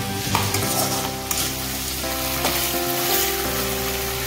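Potato pieces and ground spice paste sizzling in hot oil in a metal kadai while a spatula stirs them, with a few sharp knocks of the spatula against the pan.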